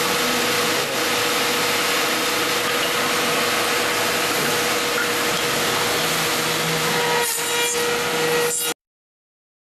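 CNC tenoner-mortiser running and cutting wood, a steady machining noise with a constant motor whine. It cuts off suddenly near the end.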